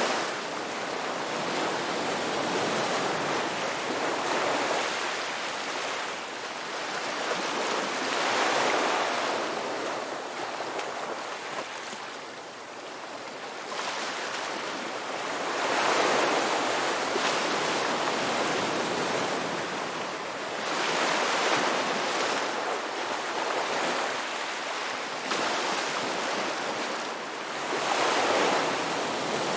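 Ocean waves washing ashore in a continuous hiss, with a louder surge of surf every four to five seconds.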